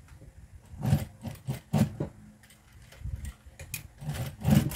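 A Juki industrial sewing machine stitching in short stop-start bursts as fabric binding is fed under the presser foot, with a pause of about a second around the middle.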